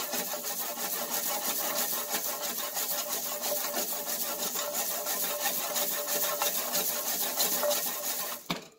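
A few hundred moly-coated, copper-jacketed hollow-point rifle bullets rattling and sliding together as they are shaken back and forth in a paper-towel-lined tray, a continuous dense clatter of small metal pieces that stops suddenly near the end. The shaking slams them against the tray's side to buff the wet moly coating dry and knock leftover water out of the hollow points.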